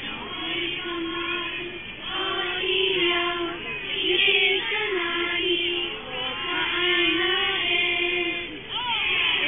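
Singing: a melody of long held notes in phrases a second or two long.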